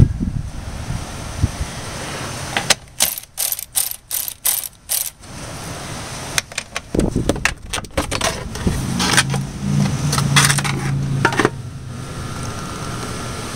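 Hand ratchet clicking in runs of quick strokes, about three clicks a second, as bolts are turned under the car. A low hum joins for a couple of seconds later on.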